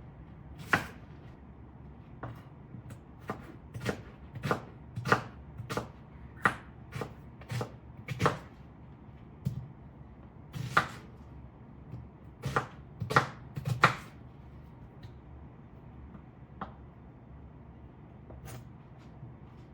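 Knife chopping vegetables on a cutting board: irregular sharp knocks, sometimes two or three in quick succession, thinning out to a few light taps in the last few seconds.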